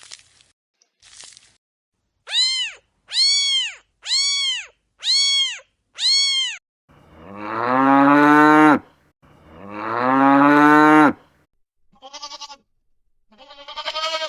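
A cat meows five times in short, evenly spaced calls, each rising and falling in pitch. A cow then moos twice in long, low calls that swell in loudness. Near the end come two short, wavering bleats.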